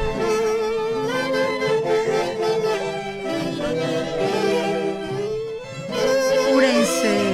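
Background music: a melody with vibrato over held notes, with instruments such as accordion, saxophone or violin.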